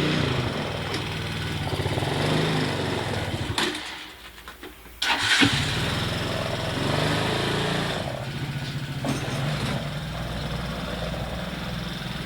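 ATV engine running, cutting out about four seconds in and starting again a second later, then idling steadily.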